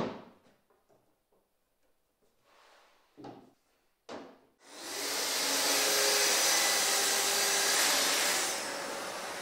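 A Festool plunge-cut track saw, hooked to a dust extractor, cuts a wood panel along its guide rail. Its loud, steady running starts about four and a half seconds in and drops near the end to the lower hum of the extractor running on. Before the cut come a knock as the panel is laid on the bench and another as the aluminium guide rail is set down.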